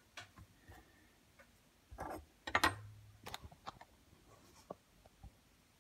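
Light, scattered clicks and taps of a small diecast model and metal hand tools being handled on a paper-covered tabletop, with a louder cluster of clicks about two to three seconds in.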